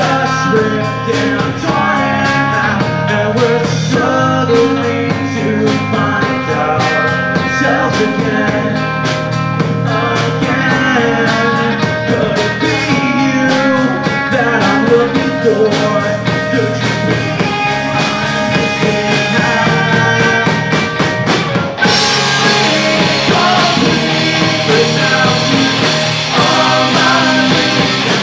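Live rock band playing a song with electric guitars, bass guitar and drums. The sound turns brighter and fuller about 22 seconds in.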